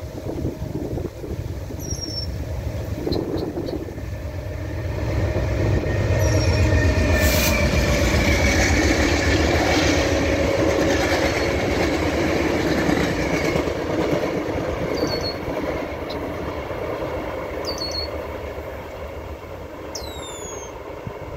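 VIA Rail passenger train, a GE P42DC diesel locomotive hauling five stainless-steel Budd coaches, passing at speed. A rising rumble of engine and wheels on rail comes first, with a faint ringing tone from the wheels, then it fades as the train moves away. Birds chirp now and then.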